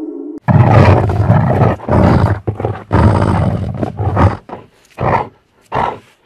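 Werewolf monster sound effect: the tail of a falling howl cuts off, then a loud, rasping roar comes in several surges for about four seconds and breaks into three shorter snarls near the end.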